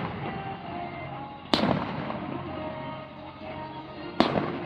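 Aerial firework shells bursting: two sharp booms about two and a half seconds apart, each trailing off in a rumbling echo, with music playing underneath.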